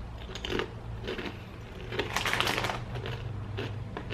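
Crunching and chewing a mouthful of crisp tortilla chip: a run of sharp cracks, loudest and thickest about two seconds in.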